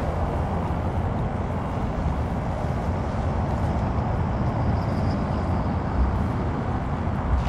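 Wind buffeting the microphone on an open shore: a steady low rumble with a couple of stronger thumps near the end.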